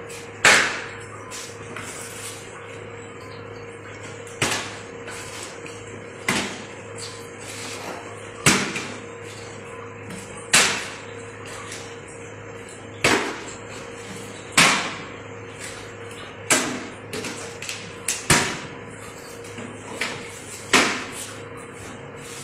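A small plastic bottle repeatedly tossed and landing on a concrete floor: about a dozen sharp clacks, roughly every two seconds, each ringing briefly, over a steady low hum.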